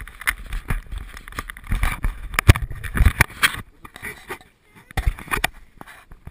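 Handling noise on the camera's microphone: irregular knocks, rubs and rustles as the camera is moved and touched, with a quieter gap a little past the middle.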